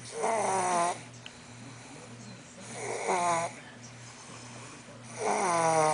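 Snoring: three snores about two and a half seconds apart, each a pitched rasp lasting under a second.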